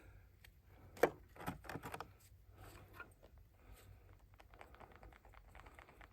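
A stick knocking once sharply against a cup, a few lighter clicks, then faint rapid scraping as fiberglass resin and hardener are stirred.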